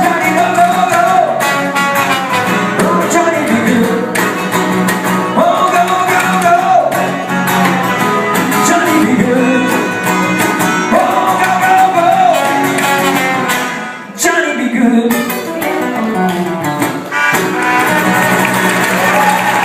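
Music: a voice singing held, gliding phrases over a guitar accompaniment, with a brief drop in level about fourteen seconds in.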